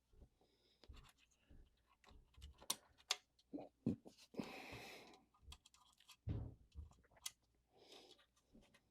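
Faint clicks and taps of small tools and parts being handled at a workbench while cleaning electrical contacts on an oven control board, with a short rubbing hiss about halfway through.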